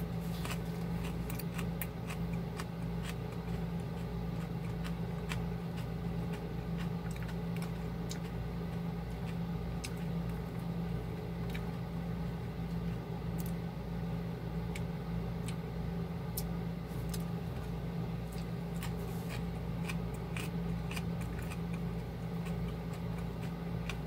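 A steady low machine hum, like an air conditioner running, with scattered faint clicks and smacks of someone chewing a piece of jalapeno close to the microphone.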